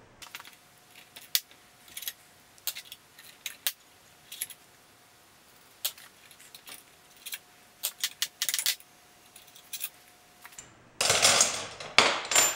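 Scattered metal clicks and clinks of a ratchet wrench and a spanner as the long through-bolts of a Dayton electric motor are loosened and drawn out, ending in a louder clatter of metal parts being handled near the end.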